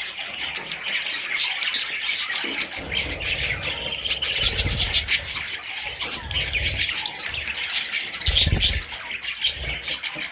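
A flock of budgerigars chattering and squawking continuously, many overlapping short calls and clicks, with a few low rumbles, the loudest near the end.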